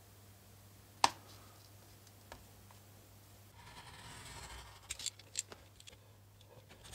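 Snap-off craft knife drawn along a ruler, slicing through leather in a scraping stroke lasting about a second, about halfway in. There is a sharp click about a second in and a few small clicks of the blade and ruler after the cut.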